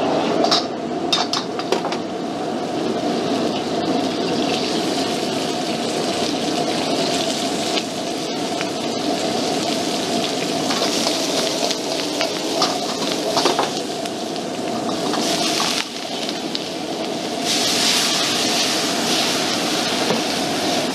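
High-powered gas wok burners running steadily, with water pouring from a tap into a stockpot and food sizzling in a carbon-steel wok. A few sharp metal clicks of wok and utensils come in the first couple of seconds, and the sizzling hiss grows louder over the last few seconds as flames flare up around the wok.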